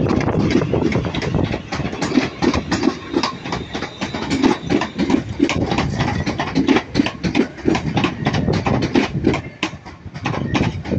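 London Northwestern Railway Class 350 electric multiple unit running past, a steady rumble with its wheels clicking and clattering over the track in a quick, irregular run of knocks.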